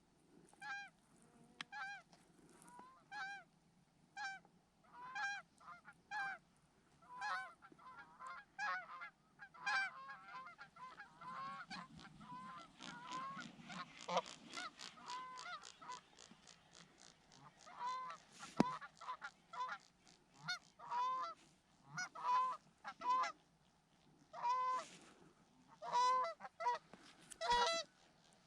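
A flock of geese honking as they come in over the decoys to land, with calls repeating and overlapping, busiest around the middle and louder near the end.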